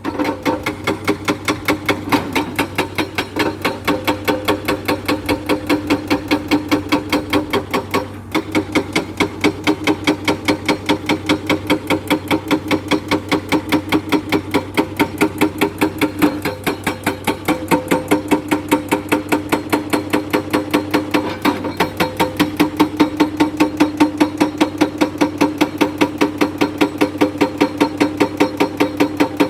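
Excavator-mounted hydraulic rock breaker hammering limestone, a rapid, even stream of blows several times a second over the steady hum of the machine, with brief pauses about 8 and 16 seconds in.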